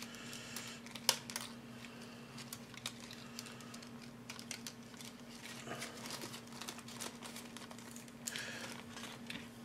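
A clear plastic model-kit sprue being slid back into a resealable plastic bag: soft crinkling of the bag film with scattered light plastic clicks. A faint steady hum runs underneath.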